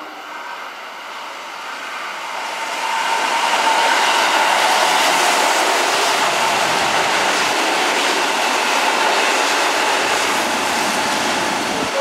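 Red-and-white Kintetsu electric commuter train running past close by: its wheels and motors grow louder over the first three seconds as it approaches, then a steady loud rush as the cars go by. The sound changes abruptly at the very end.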